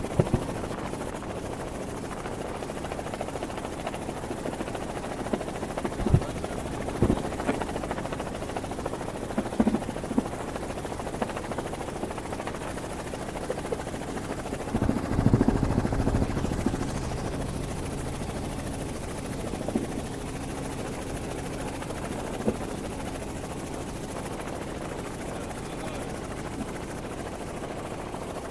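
Helicopter running steadily in flight, heard from on board as a constant rotor and engine drone, with a few short low bumps and a louder stretch about halfway through.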